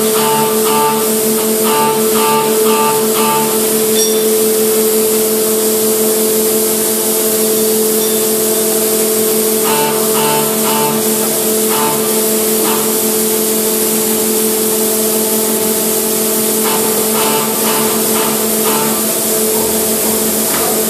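Steady hum and hiss of a tunnel boring machine's hydraulic systems during ring segment erection. A quick repeating beep-like pulse comes in runs near the start, around ten seconds in, and again near the end.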